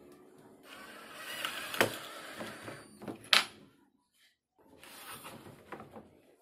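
A laminated blockboard panel scraping and knocking against a wooden cabinet frame as it is fitted by hand, with two sharp knocks about a second and a half apart. After a brief gap, fainter handling noise and small clicks follow.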